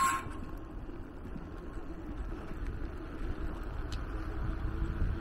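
Wind on the camera microphone and the rumble of an electric bicycle's tyres rolling downhill, growing a little louder toward the end. A brief high squeal sounds right at the start.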